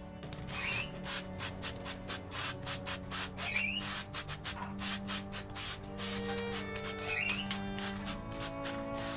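Aerosol spray paint can hissing in many short, rapid bursts as cyan paint is sprayed over a stencil, with three brief squeaks among them.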